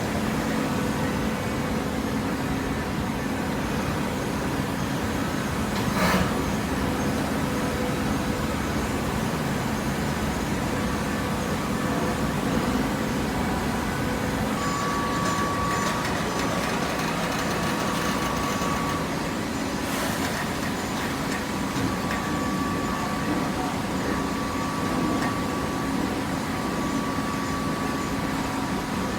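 Industrial hydraulic waste-paper baler running: a steady machine hum with a higher whine that comes in for a few seconds at a time, and two sharp clanks, about six seconds in and about twenty seconds in.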